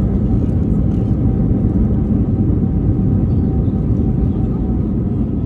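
Cabin noise of an Airbus A321neo rolling out on the runway just after landing: a steady low rumble of engines and wheels, easing off slightly near the end as the jet slows.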